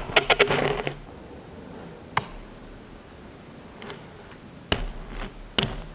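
BMX bike and tyres on asphalt during an X-up 180: a quick run of clicks and rattles in the first second as it comes round and lands, then a few single sharp clicks and a louder knock about five seconds in.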